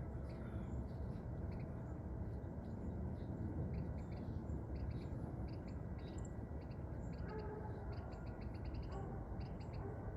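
Small backyard birds chirping: short high chirps repeated throughout, with a quick rapid run of them about six seconds in, over a steady low background rumble.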